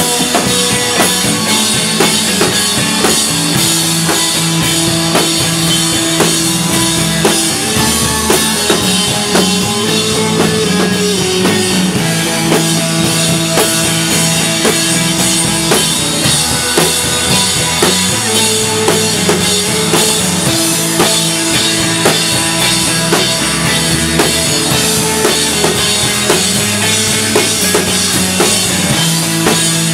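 Emo rock band playing live: electric guitar over a full drum kit with steady cymbal and snare hits, loud throughout.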